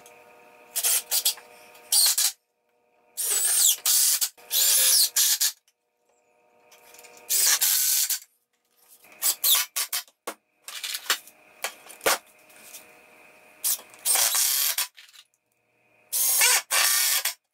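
Ryobi cordless drill driving screws into pine boards in about a dozen short runs, each about a second long, its motor pitch sliding up and down, with brief pauses between.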